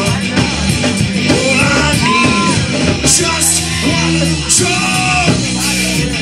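Live punk-reggae band playing, with a singer singing and shouting long held notes into a microphone over electric guitar, bass and drums.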